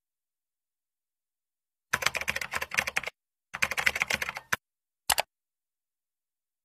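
Computer keyboard typing sound effect: two quick runs of keystrokes, each about a second long, starting about two seconds in, then a single click a little after five seconds.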